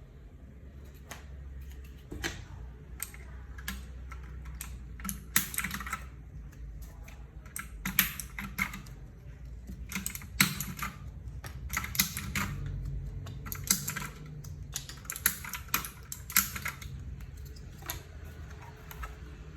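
Typing on a Fuhlen D87s RGB mechanical keyboard with clicky Huano Blue switches: irregular runs of sharp key clicks broken by short pauses.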